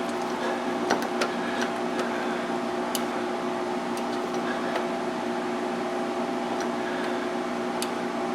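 A steady machine hum with several constant tones, over which a few faint, scattered clicks sound.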